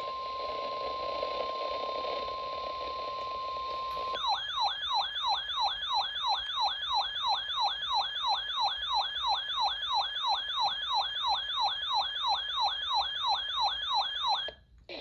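NOAA Weather Radio warning alert tone: a steady 1050 Hz tone over radio hiss for about four seconds. It is followed by a siren-like electronic alarm that sweeps up and down about three times a second for about ten seconds. The alarm cuts off just before a tornado warning message.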